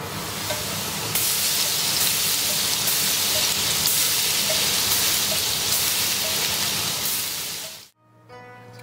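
Hot oil in a deep fryer sizzling hard and steadily as battered food fries in it. The sizzle fades out near the end and gives way to plucked-string music.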